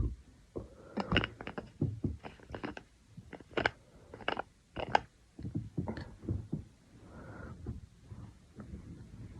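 A person gulping water in a quick run of swallows with wet clicking mouth and throat sounds, about two a second, easing off after about six seconds.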